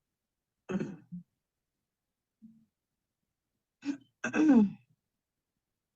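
A person coughing deliberately as part of a cleansing coughing technique. There is a short bout of voiced coughs about a second in, a faint one at about two and a half seconds, and a longer bout near four seconds whose voice falls in pitch.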